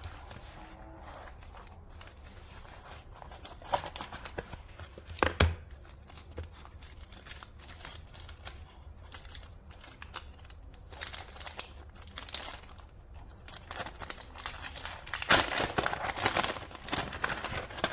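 Packaging being torn and crinkled as a new speaker is unboxed, in irregular rustling bursts. There is a sharp knock about five seconds in, and the crinkling grows busier and louder in the last few seconds.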